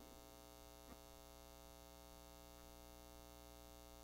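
Near silence: a faint steady hum, with one faint click about a second in.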